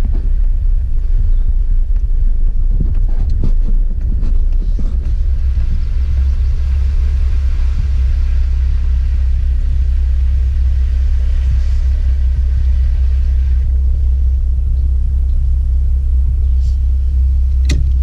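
Four-wheel-drive vehicle driving slowly on a rough dirt road, with a steady low rumble of engine and tyres and a few knocks from bumps early on. About six seconds in it enters a deep puddle, and water washes and splashes around the wheels for several seconds before easing off.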